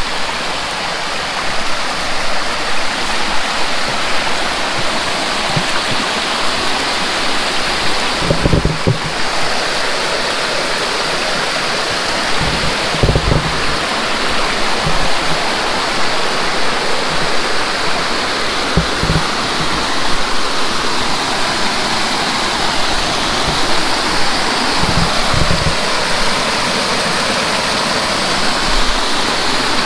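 Steady loud rush of river rapids on the Chattooga River, with a few dull low thumps now and then.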